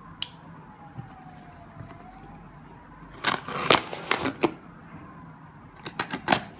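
A small knife slitting the packing tape and scraping the cardboard of a parcel: quick scratchy rasps in two bouts, about three seconds in and again near the end, with a sharp click just after the start.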